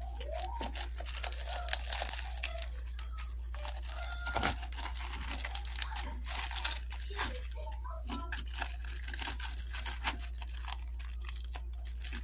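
A plastic fork breaking into a sauce-covered fried buffalo fish fillet: irregular crunching and crackling of the crisp fried crust as the flesh is pulled apart, over a steady low hum.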